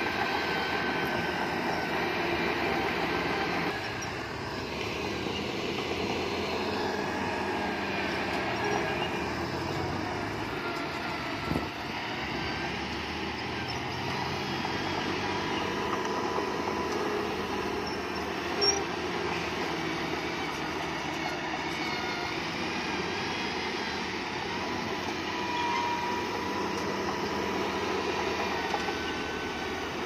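Bulldozer at work: the steel crawler tracks squeal in high, wavering tones over a steady machine rumble. Two sharp knocks come about eleven and nineteen seconds in.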